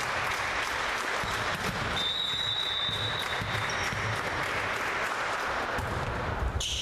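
Spectators applauding and clapping in a sports hall between volleyball rallies, steady throughout. A thin high steady tone sounds for under two seconds about two seconds in.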